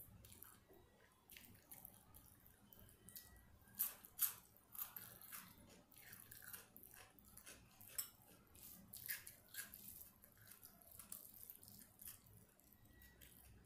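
Fingers mixing and squeezing rice with curry on a plate: quiet, wet, sticky clicks and squishes in quick irregular succession, the loudest two about four seconds in.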